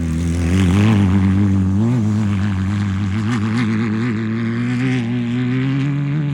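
Off-road race car engine running near a steady speed, its pitch wobbling quickly as the throttle is worked, then climbing slightly near the end.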